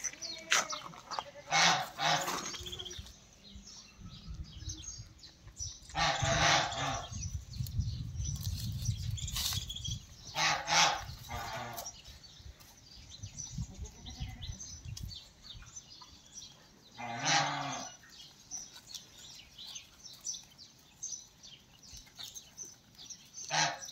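Goats bleating behind the pen's wire mesh, about six short calls spread out, with the clearest about six, eleven and seventeen seconds in. A low rumble runs under the middle of the stretch.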